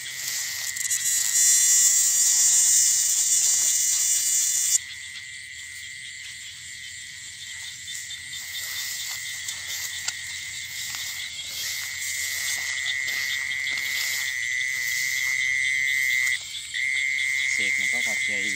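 Night chorus of frogs and insects in a rice field, with a steady high-pitched insect chirring. A loud high hiss-like buzz starts about a second in and cuts off suddenly near five seconds in.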